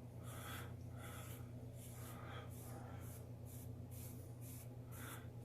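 A comb drawn repeatedly through a beard freshly worked with beard butter, making faint, scratchy strokes about twice a second, over a steady low hum.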